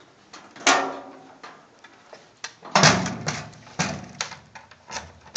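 Heavy steel kiosk cabinet door and front panel being handled on their hinges: a series of metal knocks and clanks, the loudest about three seconds in.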